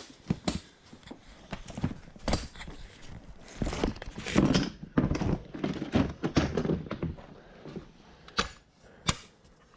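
Knocks, clicks and thunks of a Yamaha Big Bear four-wheeler's seat being popped off and the air filter cover opened by hand. A run of irregular handling knocks is busiest in the middle, with a few sharp single clicks near the end.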